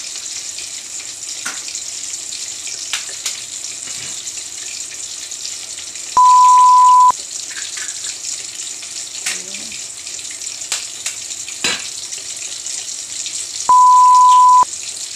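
Water boiling in a large steel pot, a steady hiss, with a few light knocks as eggs are cracked in. Two loud, steady one-pitch beeps of about a second each come about six and thirteen seconds in.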